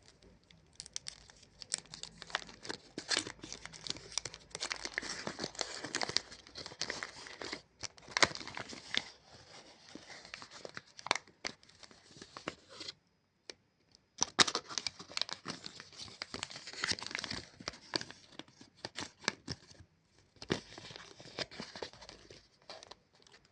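Plastic wrapper of a Chupa Chups lollipop crinkling and tearing as it is handled, in bursts of crackle with a pause about halfway through.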